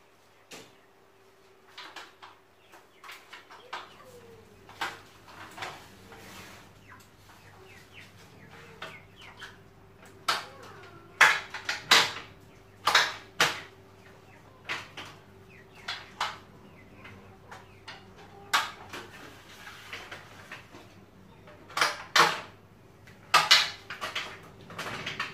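Sumika SKM404 aluminium telescopic ladder being extended: a series of metal clicks and clanks as the rail sections slide out and the locking joints snap into place, the loudest clanks around the middle and again near the end.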